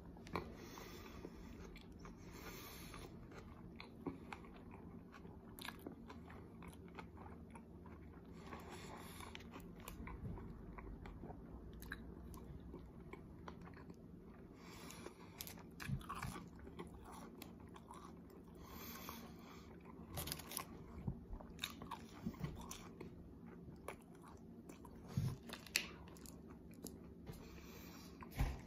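Close-up chewing of a mouthful of burger: soft wet smacks and small crunches coming irregularly, over a faint steady room hum.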